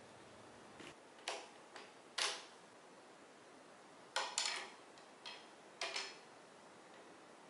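Sharp metallic clicks and clinks of a ratchet and socket being fitted and worked on the crankshaft pulley bolt of a rebuilt 4.0-litre straight-six engine. About eight separate clinks come in two groups, each with a short ring.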